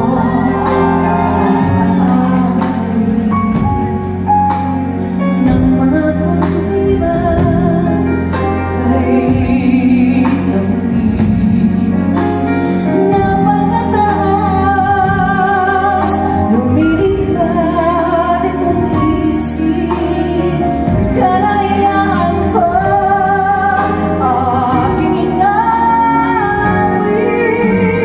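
Live music: a woman singing long held notes with vibrato over instrumental accompaniment.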